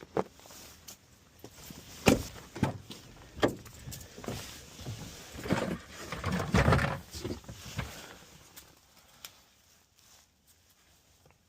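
Metal scrapes and clinks of a wire brush and hand tools worked on a gas pipe fitting. They come in irregular strokes, densest about six to seven seconds in, and die away in the last few seconds.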